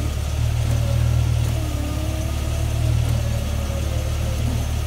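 1990 Jeep Wagoneer engine idling with a steady low hum.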